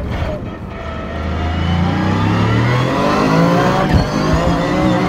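Toyota GR Yaris's 1.6-litre turbocharged three-cylinder engine under full-throttle acceleration, heard from inside the cabin, its revs climbing steadily. About four seconds in, a sharp clunk as the sequential gearbox upshifts, and the revs drop and start rising again.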